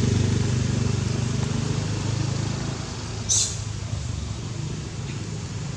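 A motor vehicle's engine drone, steady and low, slowly fading away. A short hiss sounds about three seconds in.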